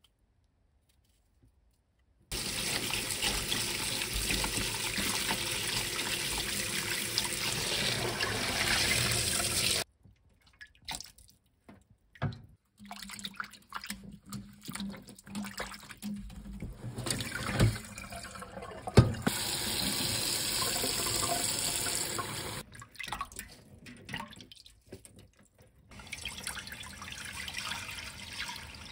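Kitchen tap running into a stainless steel sink, steady for several seconds, then stopping. Then comes irregular splashing and knocking as hands swish greens in a metal bowl of water, with the tap running again for a few seconds. Near the end, a quieter stream of water pours into a pot.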